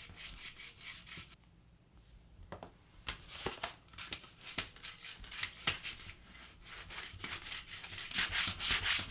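Hands rolling Play-Doh into a thin rope on a work surface: irregular soft rubbing and brushing strokes, with a short lull about two seconds in and busier strokes near the end.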